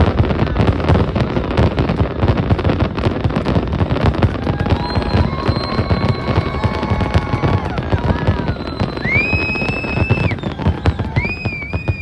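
Fireworks display: a dense, rapid barrage of crackling bangs and booms. High sustained whistles join in during the second half, one rising sharply about nine seconds in.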